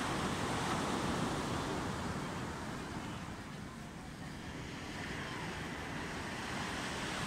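Steady wash of surf and wind, with wind buffeting the microphone.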